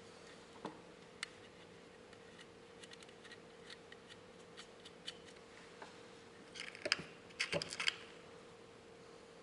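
Light scattered clicks and taps of small metal parts being handled as a car horn is reassembled by hand, with a quick run of metallic clinks about seven to eight seconds in.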